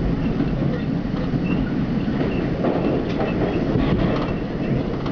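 R42 subway train running along the track into a station, heard from inside the car: a steady low rumble with wheel clatter and a few faint, brief high squeals.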